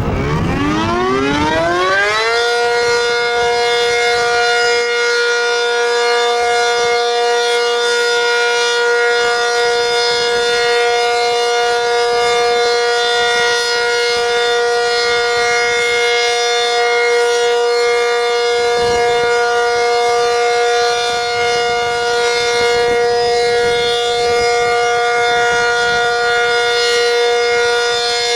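ACA Cyclone 125 tornado siren winding up, its pitch rising over about two seconds, then holding a loud steady tone: the steady alert signal of a monthly siren test.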